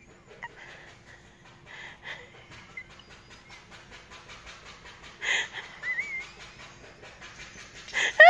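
A dog panting rapidly, about five breaths a second, with short high whines while being scratched, and a louder rising whine near the end.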